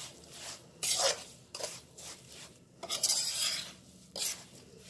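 Metal spoon scraping and turning a coarse, crumbly mixture of roasted moong dal, sugar and nuts against the sides of a metal kadhai. There are several uneven scraping strokes, the loudest about three seconds in.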